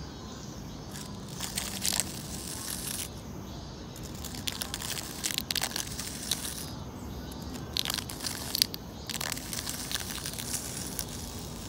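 Small 3D-printed plastic rake on a pencil scraping and crunching through sandy gravel soil, in repeated gritty strokes.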